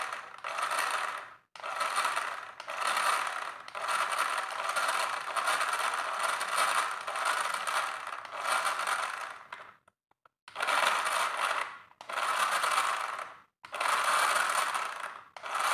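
Battery-powered toy RC car's small electric motor and plastic gears whirring as its wheels spin in the air. It runs in bursts of one to several seconds with brief stops between them, as the remote's forward and backward controls are worked.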